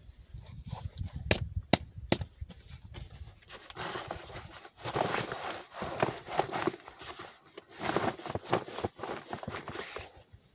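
Gear being handled in an open military-style MOLLE backpack: irregular rustling and shuffling of fabric and contents, with a few sharp clicks in the first couple of seconds.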